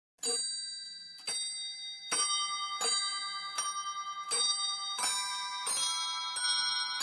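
Alarm clock chime playing a tune of struck bell-like notes, about one every three-quarters of a second, each note ringing on under the next.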